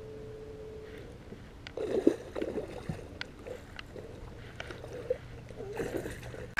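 A hooked bass splashing and thrashing at the water's surface beside the boat, in irregular bursts from about two seconds in, over a steady low hum.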